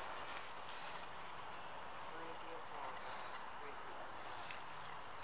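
Crickets chirping in the night, a steady high-pitched trill that runs on without a break.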